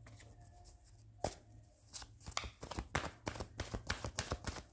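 A tarot deck shuffled by hand: one card snap about a second in, then a quick run of card slaps from about two seconds in.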